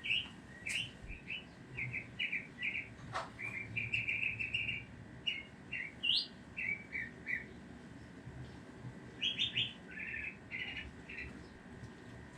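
A small songbird chirping over and over in short, high chirps, several a second, with a brief lull in the middle.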